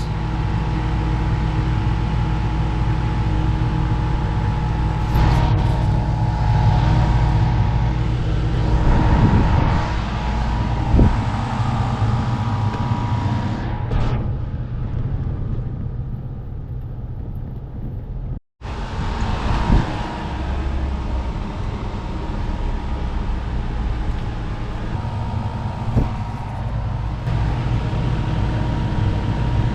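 Portable air conditioner running off a battery power station under a heavy load of about 1100 watts, a steady hum with a constant tone. A few light knocks, and the sound drops out for an instant a little past halfway.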